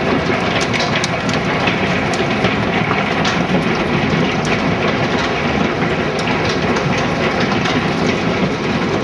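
Large hailstones, close to golf-ball size, hammering down in a dense, steady clatter of hard impacts over a rushing roar of falling ice and rain.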